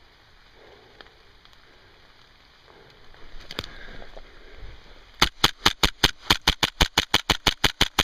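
Airsoft gun firing a rapid run of shots, about six or seven a second, starting a little after five seconds in. Before it, quiet rustling movement.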